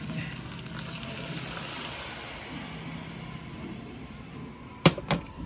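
Water poured from a glass into a hot pot of frying chicken pieces, a steady hissing pour. Near the end come two sharp clicks a moment apart.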